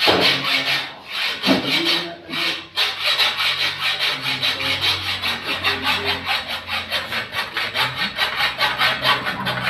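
Hacksaw cutting through steel EMT conduit: a few slow, long strokes to start the cut, then a fast, even back-and-forth sawing rhythm from about three seconds in.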